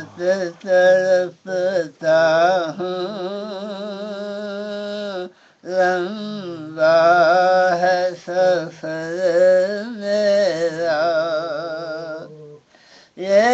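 A solo voice singing an Urdu devotional hymn (naat) in long, held, wavering notes, breaking off briefly about five and a half seconds in and again near the end.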